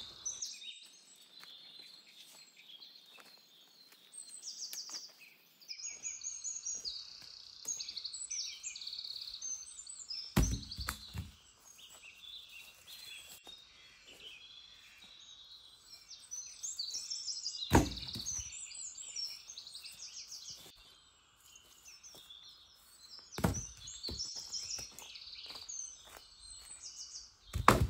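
Forest birds chirping and singing throughout, with four heavy thuds a few seconds apart.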